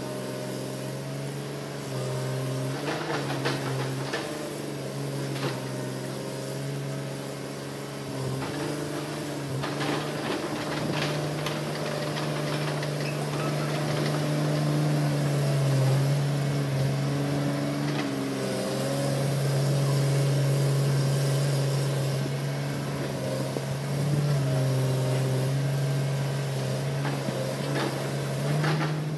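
Hitachi Zaxis 200-5G excavator's diesel engine running under working load, its pitch and loudness rising and falling as the machine digs and moves, with scattered knocks from the bucket and tracks working the soil and brush.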